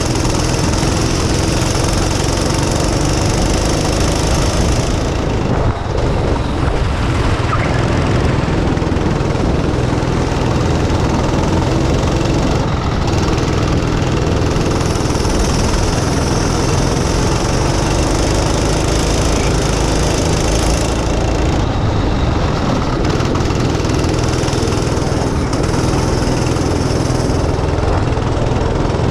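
Go-kart engine running hard at racing speed, heard from a helmet-mounted camera on the driver, with a brief dip about six seconds in.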